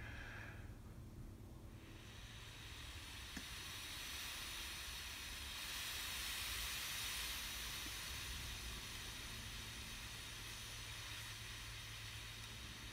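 Long steady hiss of breath blown through soft aquarium air tubing into the beacon's vent. It builds over the first couple of seconds, swells about midway and eases off toward the end.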